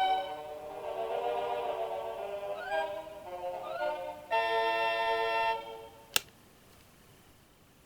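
Seiko NR435P quartz alarm clock's electronic melody alarm playing a tune, ending on a held chord about five and a half seconds in. A single sharp click follows about a second later.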